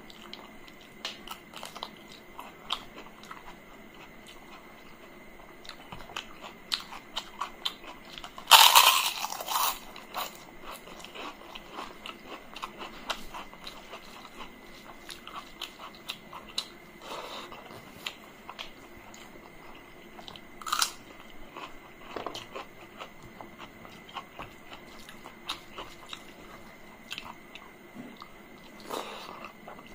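Close-miked eating: wet chewing and smacking of rice and curry eaten by hand, with a loud crunch of papad about eight and a half seconds in and a few shorter crunches later.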